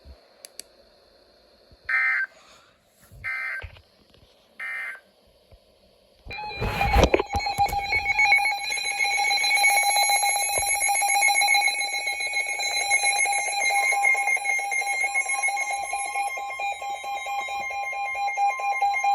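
Emergency Alert System audio: three short bursts of digital data tones, then a bump and a loud, steady two-tone alert tone that sounds for the rest of the time, the attention signal that opens a new alert.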